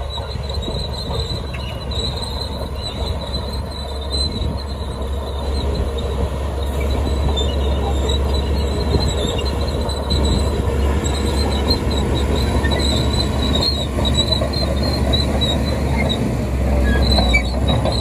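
Caterpillar D3K crawler dozer running over loose dirt. Its diesel engine gives a steady low drone, and the steel tracks give off a high squeal that comes and goes. The sound gets a little louder partway through.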